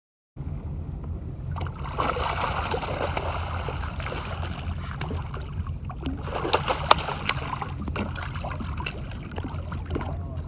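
A hooked bluefish thrashing at the surface beside the boat: water splashing and sloshing with many sharp slaps, the loudest about seven seconds in. A steady low hum sits underneath.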